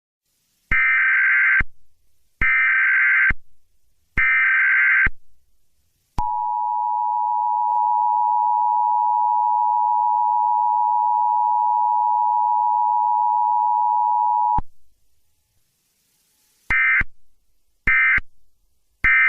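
Emergency Alert System tones: three bursts of the SAME header's warbling data tones, then the two-tone attention signal (853 and 960 Hz together) held steady for about eight seconds and cut off suddenly, then three short data bursts of the kind that mark end of message.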